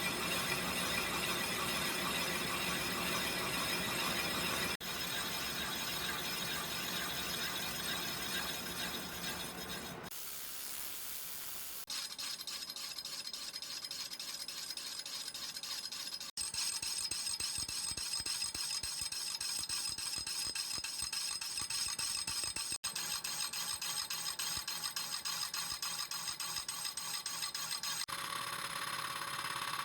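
Metalworking machine tool running and cutting metal, a steady scraping noise with a whining squeal over it. The sound breaks off and changes abruptly several times.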